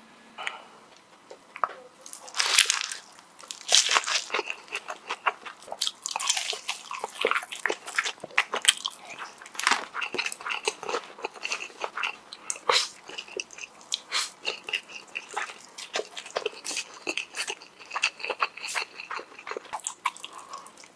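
Close-miked eating: crunchy bites and chewing, a dense run of crisp crackles and clicks that starts loudly about two and a half seconds in and continues.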